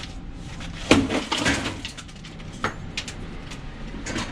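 Scrap appliance being smashed apart: a heavy crash about a second in with a short clatter after it, then a few sharp separate knocks.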